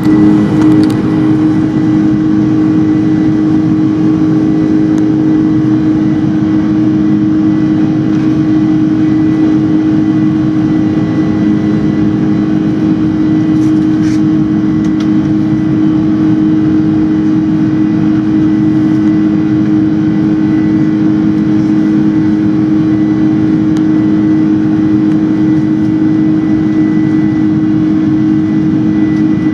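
Boeing 747-400 engines and airflow heard from inside the upper-deck cabin during the climb-out: a loud, steady drone with a thin, steady high whine above it.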